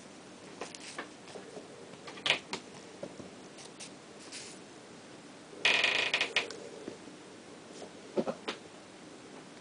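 Kittens scrabbling on a tiled floor while a feather toy is dragged past. Scattered light taps and scrapes, with a louder rustling scrape lasting about a second past the middle.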